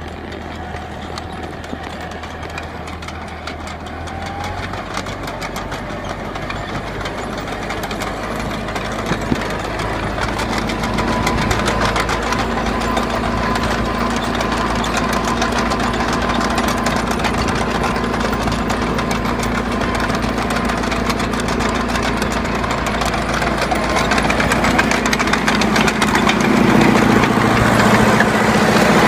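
DT-75 crawler tractor's diesel engine running steadily, growing gradually louder throughout.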